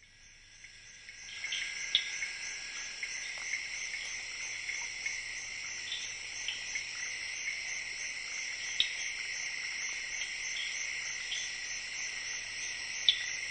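Steady shrill chorus of forest insects that fades in over the first second or so, with a few short sharp calls standing out above it, the loudest about two seconds in and just before the end.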